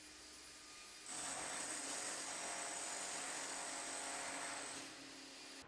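A power tool running steadily, a high whine over a whirring noise, starting abruptly about a second in and fading out near the end, over a low hum.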